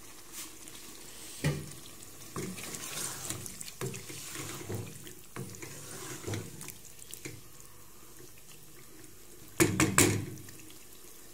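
Wooden spoon stirring a wet curry in a cooking pot, the gravy sloshing, with scattered knocks of the spoon against the pot and a brief loud clatter near the end.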